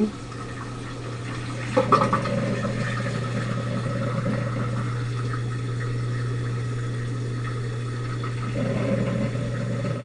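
Maytag dishwasher draining after its main wash: a steady motor hum, joined about two seconds in by a sudden louder rush of water being pumped out, which then runs on steadily.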